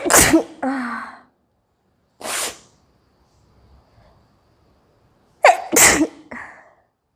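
A woman sneezing twice, about five seconds apart. Each sneeze is a sharp sudden burst followed by a short voiced tail. A short noisy breath falls between them.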